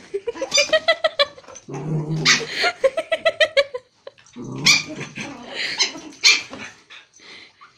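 Pomeranian puppy and Japanese Spitz play-fighting: high-pitched yips, low growls and sharp barks, dying away about six and a half seconds in.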